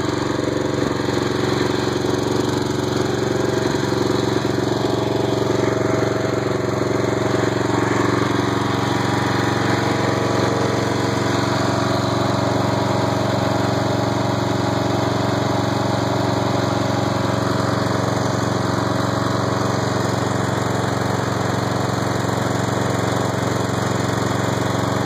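Engine of a Snapper riding mower, converted for off-road use, running steadily at a constant speed.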